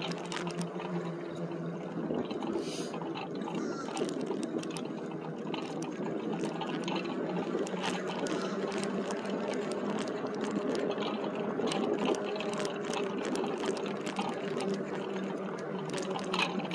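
Electric bike moving along a road: a steady low motor hum under an even rushing noise of tyres and air, with many small rattling ticks throughout.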